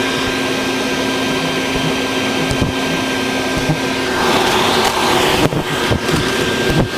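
A vacuum running steadily with a motor whine and rushing air as it sucks up bald-faced hornets at their nest. About four seconds in, the steady low tone drops out and the rushing hiss gets louder.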